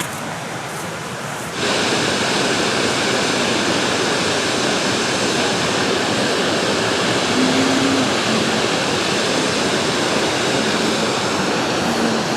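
Waterfall rushing: a steady wash of falling water that becomes abruptly louder about a second and a half in.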